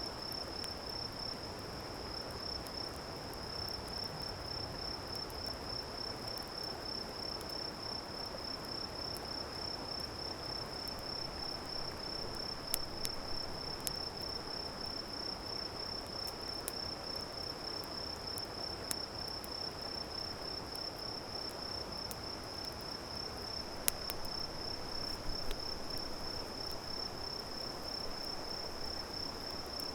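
Insects trilling in one steady, high-pitched continuous chorus, over a soft even hiss, with a few sharp pops from a wood campfire crackling about halfway through and again near the end.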